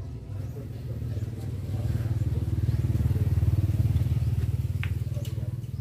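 A motorcycle engine running past, its fast low pulsing growing louder to a peak a little past halfway and then fading.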